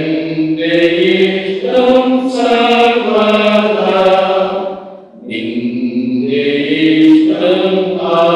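A hymn sung in slow, held notes, in two phrases with a short break for breath about five seconds in.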